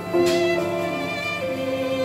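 Background music: a slow melody of long held notes that change pitch every half second or so.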